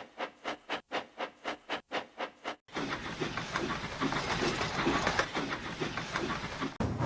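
Steam locomotive exhaust chuffing in a quick, even beat with clean gaps between the chuffs. About two and a half seconds in, this gives way to a steady hissing rush of a steam train running, the beat still faintly heard within it.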